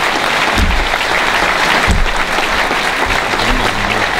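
Audience applauding steadily at the end of a speech. Two low thumps about a second and a half apart come from the handheld microphone being handled.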